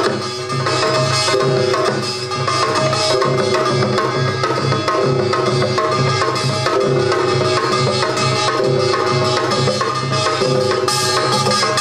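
Korean samulnori percussion ensemble playing a fast, dense rhythm: the kkwaenggwari (small handheld gong) struck rapidly with a mallet over janggu and buk drums, with gong tones ringing on throughout.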